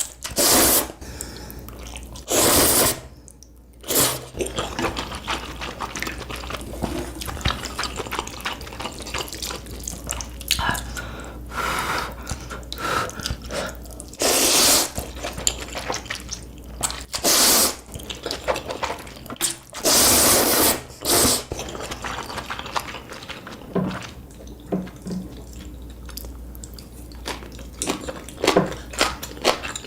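A person slurping ramen noodles close to the microphone: about seven loud slurps of around a second each, with wet chewing and mouth smacks between them.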